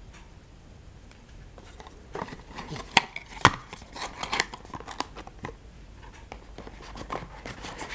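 Hands handling a small thin-cardboard box and a paper tag: scattered rustles and light taps, with two sharper clicks around three seconds in.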